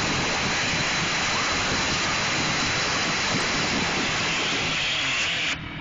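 Paddle wheel churning lake water: a steady, loud rushing and splashing that cuts off suddenly near the end.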